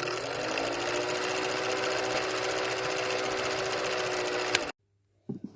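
A small motor spinning up and running steadily, then cutting off abruptly a little before the end.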